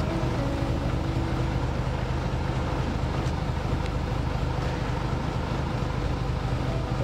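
Fishing boat's engine running with a steady low drone, under a constant wash of wind and water noise.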